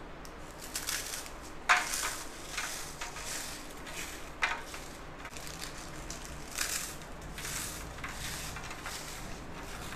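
Krack Jack biscuits being crushed by hand and crumbled into a baking pan, with the crinkle of their plastic wrapper; a few short, sharper crunches stand out among the softer crumbling.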